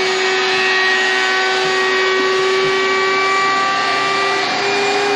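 Vacuum motor on a maple-syrup filter running at full speed, a loud steady whine, pulling near-finished syrup through the filter layers.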